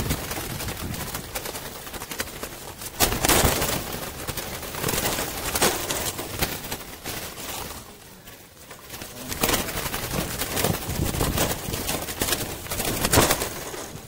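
Doves in a wire aviary flapping and fluttering their wings in several noisy bursts, with a lull about eight seconds in.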